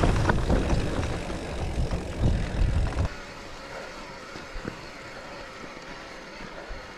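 Mountain bike ridden over the ground, heard from a handlebar-mounted camera: wind rushing on the microphone, with the tyres and frame rattling and knocking. Loud at first, it drops suddenly about three seconds in to a quieter steady rush.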